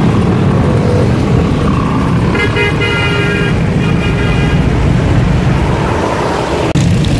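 Heavy road traffic passing close by: motorcycles, cars, a motor rickshaw and a bus running, with a steady low rumble. A vehicle horn sounds about two and a half seconds in and toots again briefly about a second later.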